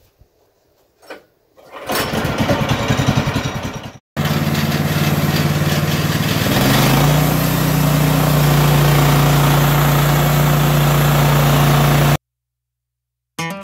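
The 14 hp Kohler engine of a Norwood portable bandsaw mill starts up about two seconds in and runs. About six seconds in it is throttled up to a higher, steady speed, and the sound cuts off abruptly near the end.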